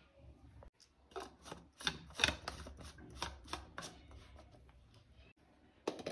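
Knife chopping vegetables on a cutting board: a run of quick strokes, about three a second, which die away near the end.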